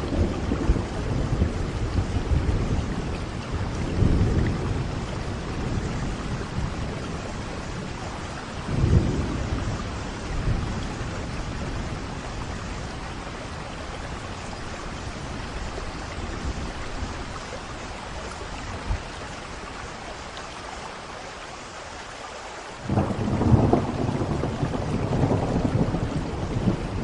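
Steady rain with rolling thunder: low rumbles swell at the start and around four and nine seconds, fade to plain rain for a stretch, then a loud thunderclap breaks in about 23 seconds in and rumbles on.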